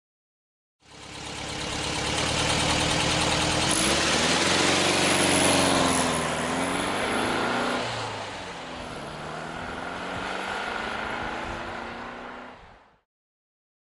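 A motor vehicle's engine running, its pitch rising and falling in the middle as it revs. It fades in about a second in and fades out near the end.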